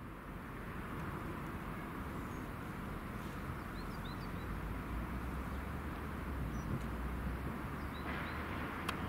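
Outdoor ambience: a steady distant rumble with a hiss over it, and a few faint, short, high bird chirps about four seconds in and again near the end.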